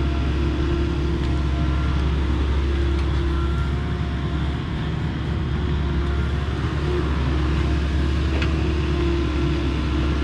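Volvo ECR58D compact excavator's diesel engine running steadily under working load as the boom and bucket dig, a strong low hum with a higher whine over it. A light knock a little past eight seconds in.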